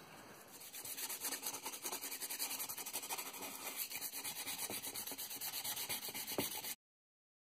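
Sandpaper rubbed by hand over the wooden body of an old spirit level, in light, quick strokes at about four a second. The timber is still a little wet and is gumming up the sandpaper. The sanding starts about half a second in and cuts off suddenly near the end.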